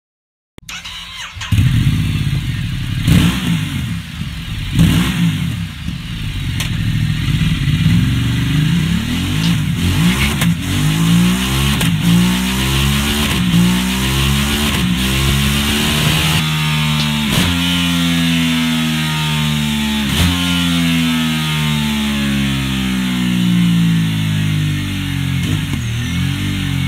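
Ducati Multistrada 1260's L-twin engine through a Zard stainless-steel slip-on exhaust, being revved. It begins about half a second in with a run of sharp throttle blips, then settles into repeated rising and falling revs.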